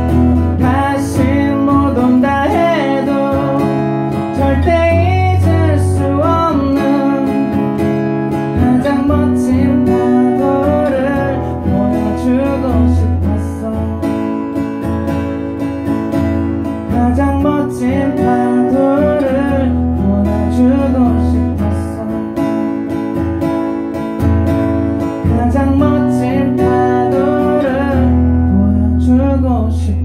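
Acoustic guitar strummed, with a man singing a melody over it in phrases.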